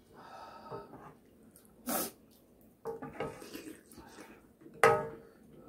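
Mouth sounds of people eating spicy soft-tofu ramen: slurps of noodles and soup and short sharp breaths. There is a burst about two seconds in, a short voiced sound around three seconds, and the loudest burst near five seconds.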